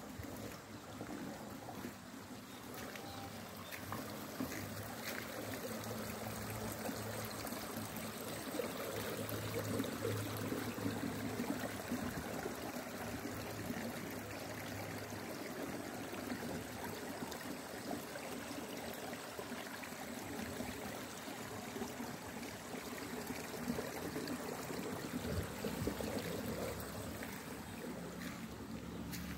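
Steady rushing and trickling of flowing water.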